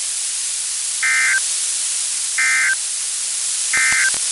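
NOAA Weather Radio sending its SAME end-of-message code: three short warbling data bursts, each about a third of a second and about 1.3 s apart, over steady radio static hiss. The code marks the end of the tornado warning message.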